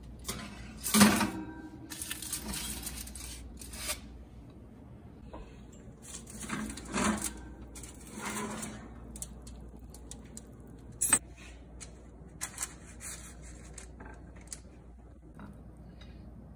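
Foil-lined metal baking tray sliding and clattering on the wire racks of an oven, in several bursts of scraping and rattling, with a few sharp clacks later on.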